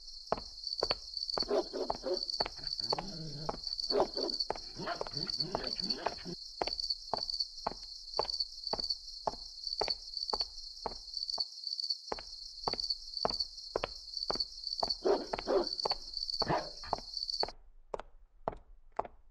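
Crickets chirping in a steady pulsing trill, with footsteps walking at about two steps a second. The crickets stop abruptly near the end while the footsteps carry on.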